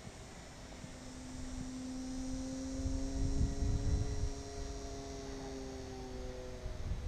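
Electric motor and propeller of a TechOne Air Titan RC plane humming as it flies past, growing louder to a peak around the middle and then fading with a slight fall in pitch. Wind rumbles on the microphone midway.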